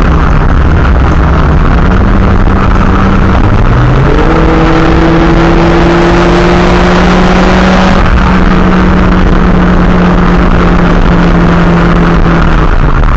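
Big-turbo, tuned Audi A5 2.0T turbocharged four-cylinder driving at highway speed, heard from inside the cabin over road noise. The engine note rises about four seconds in, holds, then drops near the end.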